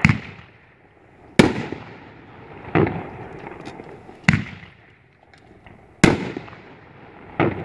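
Boomin' Bulldog 'Variety Baby' 500-gram, 3-inch firework firing aerial shells: six sharp booms about a second and a half apart, each trailing off quickly.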